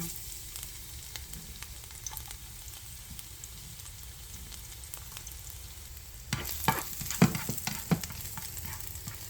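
Garlic frying in hot oil in a frying pan, a steady sizzle. About six seconds in it gets louder, with clicks and knocks of a utensil stirring in the pan.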